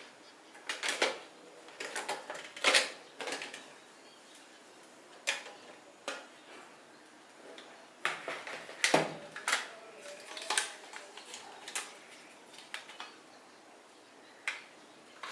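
Irregular clicks, taps and light rattles of stationery being handled and fitted back into a pencil box, with a few sharper knocks about 3 and 9 seconds in.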